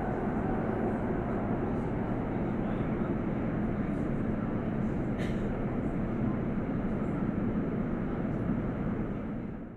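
Steady running noise inside an Elizabeth line passenger train: an even low rumble with hiss, with one short sharp click about five seconds in. The sound fades out at the very end.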